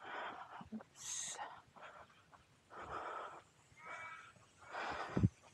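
Crows calling in a series of drawn-out, bleating caws, about one a second, with a sharp thump near the end.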